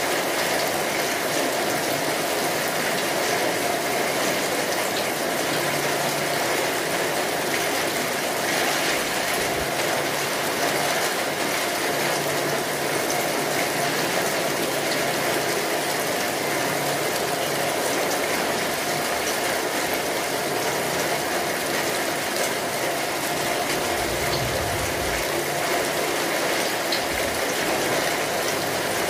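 Steady heavy rain, an even, continuous hiss of falling drops that keeps the same loudness throughout. A short low rumble comes in near the end.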